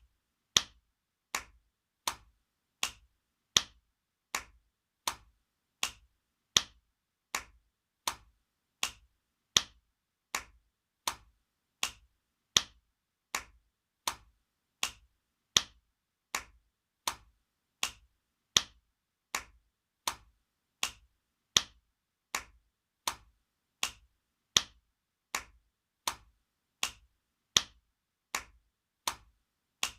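Spanking sound effect: sharp slaps of a hand on skin, repeating steadily about four every three seconds, some louder than others.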